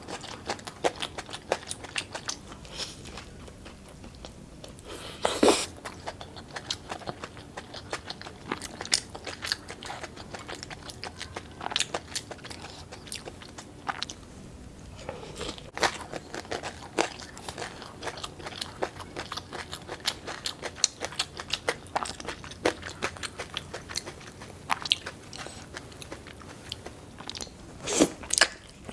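A person chewing and biting into a crunchy crayfish taco on a fried chicken cutlet, close to the microphone. There are many small crisp crunches and wet mouth clicks, and louder bites about five seconds in and near the end.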